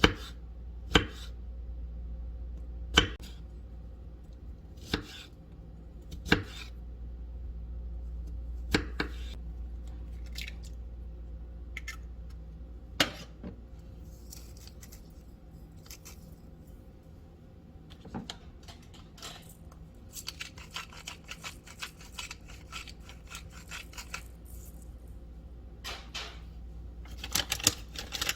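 Kitchen knife chopping on a cutting board, single sharp strikes a second or two apart, then a faster run of light, quick taps in the last third. A steady low hum runs underneath.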